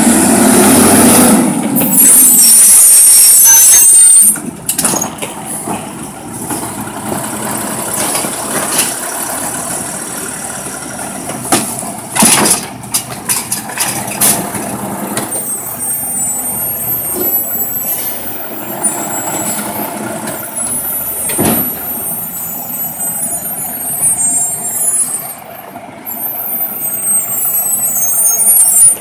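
Natural-gas side-loader garbage truck at work. For the first second and a half the engine and hydraulics rise and fall in pitch as the automated arm tips a cart into the hopper. A loud air-brake hiss follows from about two to four seconds in, then the truck's engine runs steadily, with a few sharp knocks and clunks from the body and arm.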